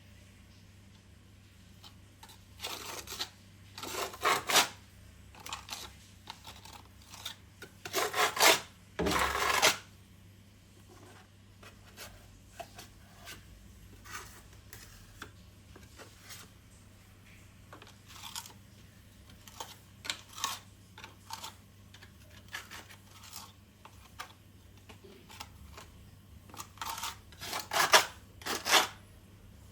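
Intermittent scraping strokes in short bursts, the longest runs near the start and near the end, with light clicks and knocks between them over a low steady hum.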